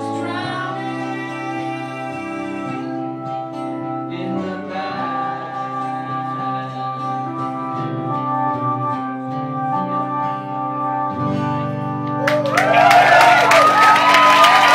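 A live acoustic song's closing chords, held and changing every few seconds. About twelve seconds in the audience bursts into loud applause with cheers and whoops.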